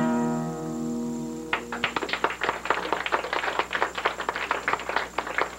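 The last chord of an acoustic guitar rings out, and about a second and a half in an audience breaks into applause that carries on to the end.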